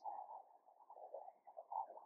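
Faint, muffled room tone: a low background hiss with a few soft flickers.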